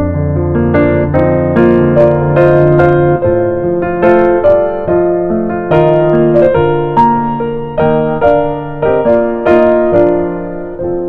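Background piano music: a gentle melody over held bass notes.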